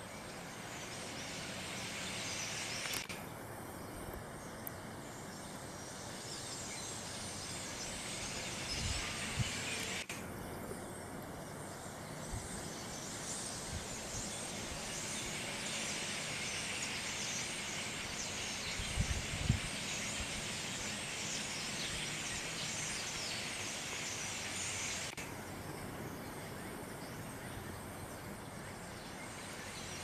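A large flock of small birds calling all at once, a dense chattering din. It cuts out abruptly about three seconds in, comes back about ten seconds in and cuts out again near the end, with a few low thumps along the way.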